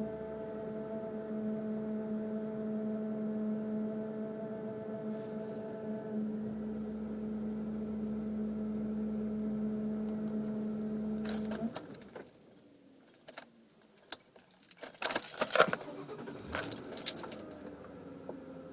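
Steady, even hum from the engine compartment of a 2002 Mercury Grand Marquis, a random noise of unknown cause, which stops abruptly about two-thirds of the way in as the ignition is switched off. Keys then jangle and click in the ignition, and the car is started again near the end.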